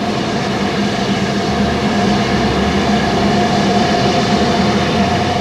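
Great Eastern E4 2-4-0 steam locomotive, a steady rumbling hiss with no clear beat that grows a little louder over the first few seconds.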